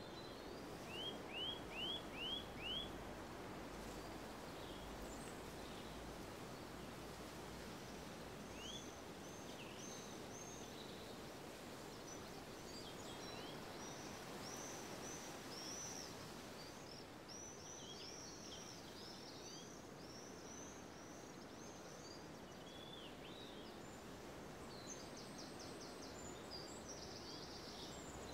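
Steady background noise of an outdoor ambience with small birds chirping. A quick run of five chirps about a second in is the loudest. From about eight seconds on, many short, high chirps follow.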